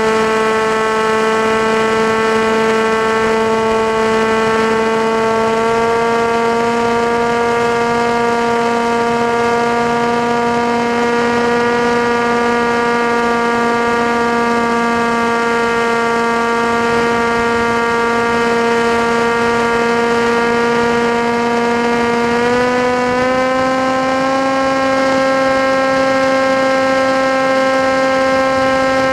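The motor and propeller of an FPV model aircraft in flight, giving a steady, loud whine. The pitch steps up slightly twice, around six seconds in and again near the end, as the throttle is raised.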